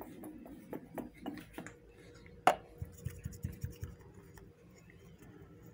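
Small plastic toys being handled: light clicks and rubbing, one sharp click about two and a half seconds in, then a few soft low thuds.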